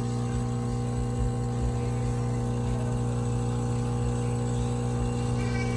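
De'Longhi Stilosa espresso machine's pump running with a steady, loud electrical hum.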